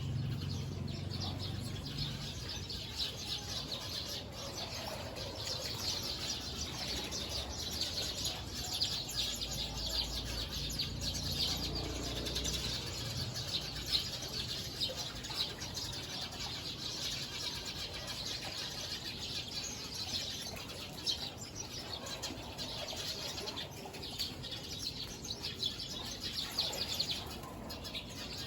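A flock of many small birds chirping together in a dense, continuous chorus of rapid overlapping chirps, as they gather to roost in the evening.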